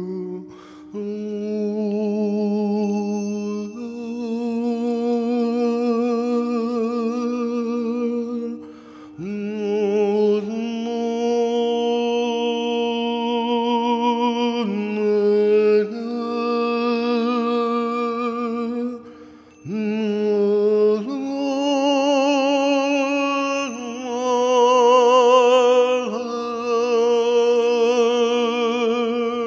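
Slow vocal music: a singing voice holds long notes with vibrato, changing pitch every few seconds and sometimes sliding up into a note, over a steady pulsing drone.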